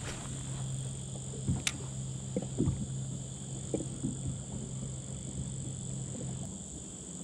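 Spinning reel being wound in on a lure retrieve: a steady low whirr that stops about six and a half seconds in. One sharp tick comes about a second and a half in, with a few soft knocks of water against the kayak hull.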